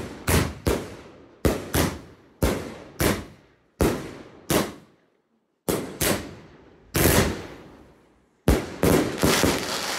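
Aerial fireworks bursting in a rapid string of sharp bangs, about one every half second to a second, each trailing off. There is a short break just past the middle before the bangs resume.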